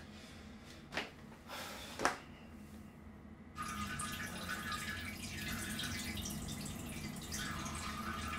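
Two short sharp knocks or splashes about a second apart, then, starting suddenly a little over three seconds in, steady trickling and dripping water in a small tiled bathroom.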